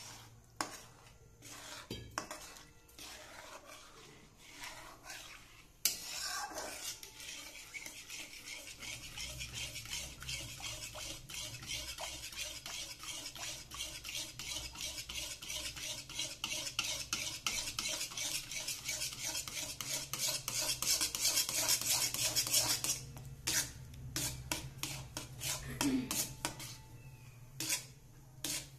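Spatula stirring and scraping milk into a butter-and-flour roux in a metal kadhai, making white sauce. A few light clicks at first. About six seconds in, fast, continuous scraping strokes begin. Near the end they slow to separate strokes.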